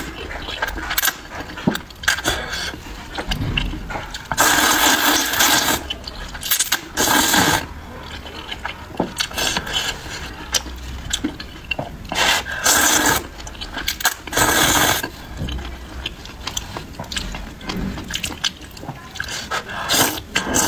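Close-miked slurping of soupy rice noodles: four loud slurps of about a second each, with wet chewing and small mouth clicks between them.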